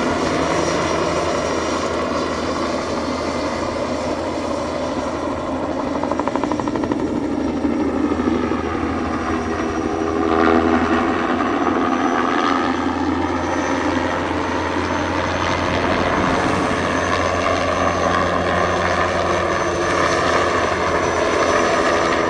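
Bell 206B-3 JetRanger III helicopter flying low past: its Allison 250 turboshaft whine and main-rotor noise run steadily. The sound is loudest about ten seconds in, and its pitch falls as the helicopter passes, then rises again as it comes back toward the microphone near the end.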